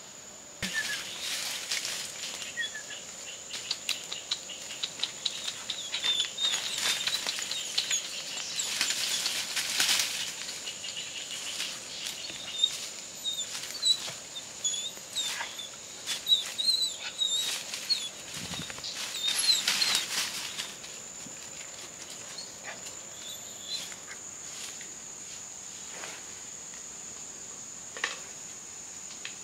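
Footsteps and rustling in dry bamboo leaf litter, dense crackling for about the first twenty seconds, then only an occasional snap. A steady high insect drone runs underneath, and many short high chirps sound over the crackling.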